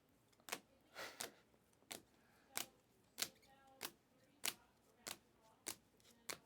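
A regular series of sharp clicks, roughly three every two seconds, like keys or a button being pressed repeatedly.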